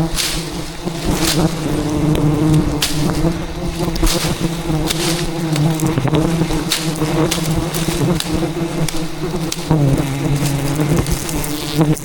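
Close, steady buzzing of a defensive swarm of giant honey bees (Apis dorsata) around a hive being harvested. Scattered sharp taps run through it, as bees strike the camera.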